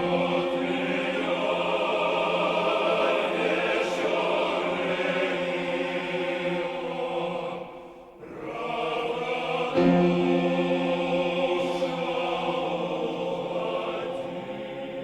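Choir singing slow held chords; a phrase dies away about eight seconds in, the choir comes back in strongly near ten seconds, then the sound slowly fades.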